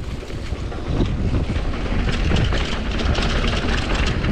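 Wind buffeting the action camera's microphone over the rattle and tyre noise of a Commencal Supreme DH downhill mountain bike rolling down a dirt trail, getting louder about a second in as it picks up speed.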